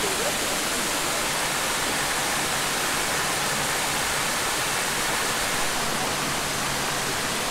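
Mountain creek rushing in a steady, unbroken wash as it sheets down over a smooth bare rock slab.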